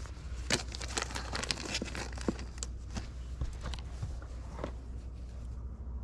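Irregular rustling and crackling with sharp clicks, densest in the first three seconds and thinning out after, over a steady low rumble.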